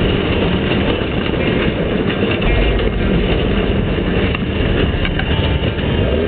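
Off-road race car running at speed over rough ground, heard from inside the cockpit: steady engine noise with constant knocking and clattering of the car over the terrain.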